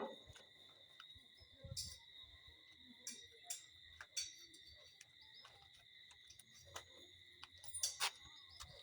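Crickets trilling steadily, a high continuous chirring, with scattered faint clicks and taps.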